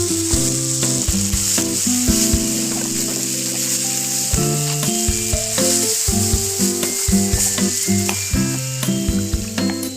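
Fish curry sizzling in hot oil in a pan while it is stirred, a steady hiss throughout. Background music with held notes plays underneath.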